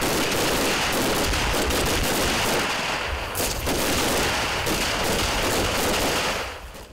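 Rapid, overlapping rifle fire from a line of soldiers shooting at targets on a range. The shots come too thick to separate and keep an even level, then die away near the end.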